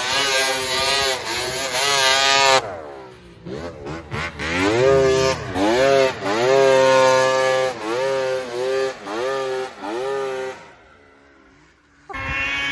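Vintage snowmobile engine revving. It runs loudly for the first couple of seconds and drops off, then gives a string of short revs, each one rising and falling in pitch, about seven in a row, before it goes quiet near the end.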